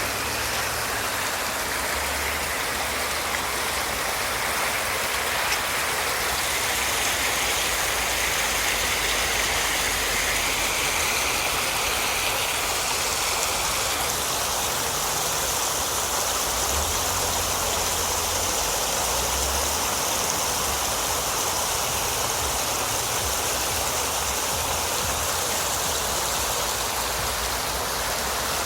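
Rain-swollen ravine stream rushing steadily down its bed, a loud, even rushing hiss of fast-flowing water.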